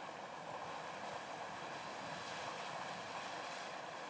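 Lone Star Geyser erupting: a steady rushing hiss of steam and water jetting from its sinter cone.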